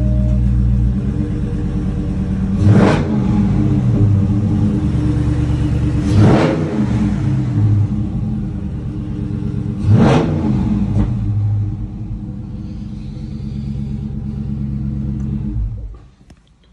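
Swapped-in Scat Pack 392 HEMI V8 (6.4-litre) idling in park and blipped three times, about three and a half seconds apart, each rev rising and falling quickly. The engine sound cuts off near the end.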